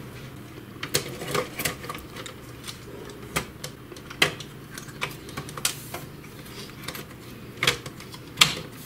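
Irregular clicks and taps of printer parts and wiring being handled and pressed into place, about a dozen sharp knocks spread unevenly, the loudest near the end.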